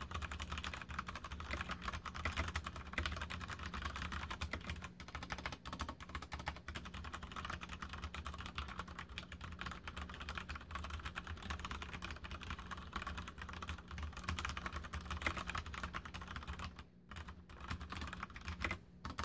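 Fast, continuous typing on a Mstone Groove87 mechanical keyboard with brown switches, a dense run of keystroke clicks. Near the end it thins to a few separate strokes, and a last one just before it stops.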